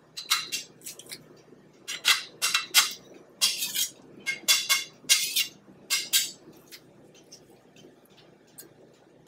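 Chef's knife blade scraping minced garlic off the face of a metal garlic press, metal on metal, in a run of short scrapes that stops about six seconds in.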